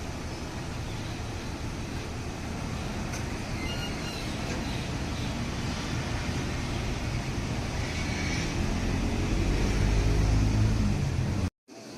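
Road traffic noise, with a motor vehicle's engine growing louder near the end until the sound cuts off abruptly.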